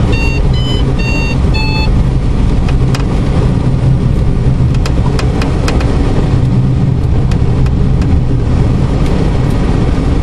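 Steady low rumble of airflow and airframe noise in the cockpit of a light aircraft gliding down on final approach with the engine off. In the first two seconds a run of short, high electronic beeps changes in pitch, and a few faint clicks follow.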